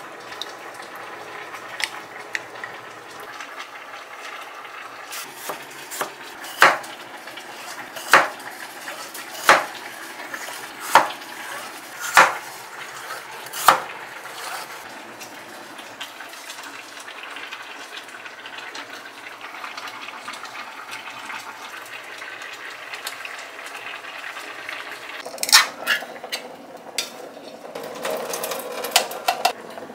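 Kitchen prep sounds: a few light clinks of a spoon in a glass mixing bowl, then a kitchen knife slicing through a vegetable onto a cutting board in about six slow, evenly spaced strokes. Near the end, corn is tipped from an opened tin into a metal mesh strainer with a cluster of clinks and rattles.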